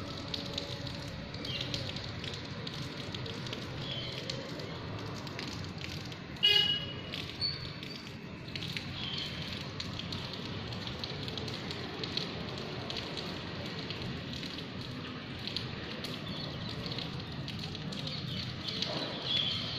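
Light rain pattering steadily on wet roofs and pavement. A short horn toot sounds about six and a half seconds in.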